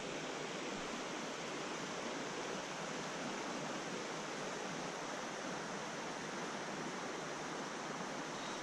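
Steady rushing of a small rocky stream flowing over stones and riffles.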